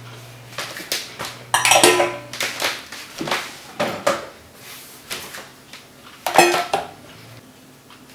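Bowls and storage containers clattering as they are set into a dishwasher rack: a series of knocks and clinks, with a run of them about two seconds in and another loud one about six and a half seconds in.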